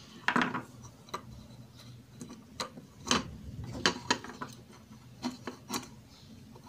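Irregular plastic clicks and rubbing from an opened frost-free refrigerator defrost timer being turned by hand, its cam moving the switch contacts over to the other side. A faint low hum runs underneath.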